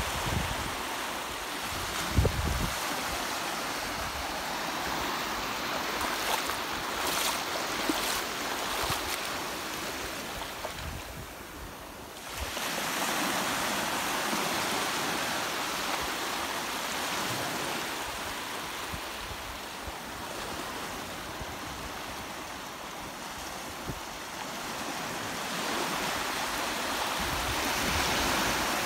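Small ocean waves breaking and washing in over shallow sand: a steady hiss of surf that ebbs briefly about twelve seconds in, then swells again as the next wave breaks.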